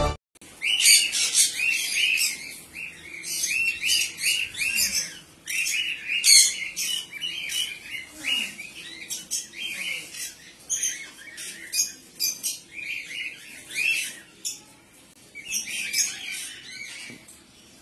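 Blue Fischer's lovebird calling: runs of quick, high-pitched chirps and squawks, with short breaks between the runs.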